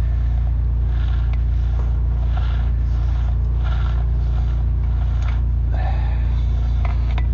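An engine running steadily with a low rumble, with short scraping sounds every second or so.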